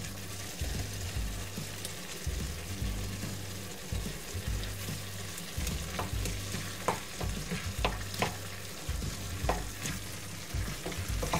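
Thick gangdoenjang (soybean-paste sauce) sizzling in a stainless steel pan while it is stirred with a wooden spoon. There are a few sharp clicks of the spoon against the pan in the second half, over a steady low hum.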